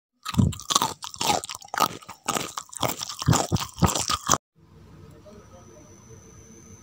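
Loud, close-miked crunching and chewing of crisp fried food, with many quick crunches in a row. It cuts off abruptly about two-thirds of the way through, leaving only a faint low hum.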